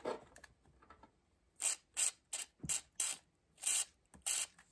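WD-40 aerosol can sprayed through its red straw in about seven short hissing bursts, starting about a second and a half in, to soak the corroded screws of an antique light socket.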